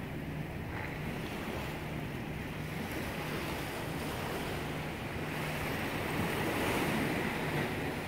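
Sea water washing against the shore, with wind on the microphone. The wash swells louder about five seconds in and eases off near the end.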